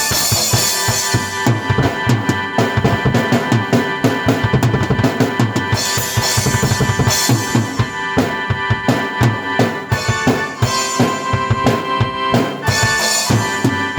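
Drum kit and keyboard played together: a busy rock-style beat of kick, snare and cymbals over sustained keyboard chords. Cymbal crashes ring out at the start, about six seconds in and near the end.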